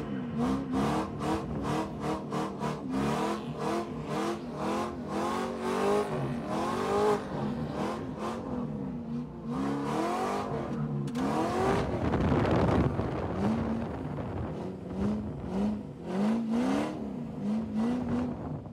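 Drift car's engine heard from inside the cabin, its pitch rising and falling over and over as the driver works the throttle through a drift. A louder rushing noise swells about twelve seconds in.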